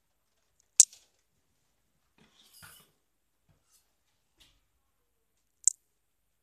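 Sharp plastic clicks from a toy Nerf blaster being handled: a loud click about a second in and another near the end, with a brief rustle of handling and a faint tick in between.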